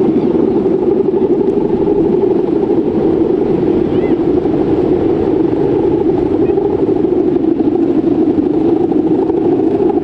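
The guangan, a bamboo-bow hummer strung across the top of a large Balinese bebean kite, droning in the wind: a loud, buzzy hum holding one low pitch without a break.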